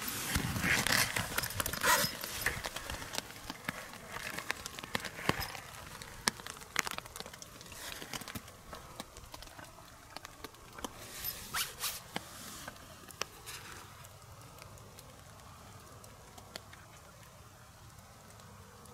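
Rustling of hammock and sleeping-bag fabric with knocks from handling the camera, busiest in the first few seconds and again about eleven to thirteen seconds in, then dying down to a faint steady hiss.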